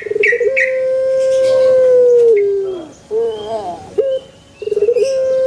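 Puter (barbary dove) cooing: a quick stuttering run of short notes that opens into one long, steady held coo of about two seconds, dropping in pitch at its end. The call comes twice, the second long note starting near the end.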